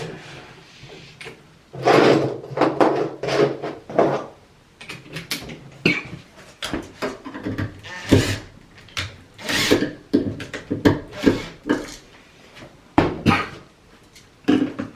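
Irregular scraping, rubbing and clunking of hands working an electrical outlet and its wires at a metal junction box, in a string of short uneven bursts.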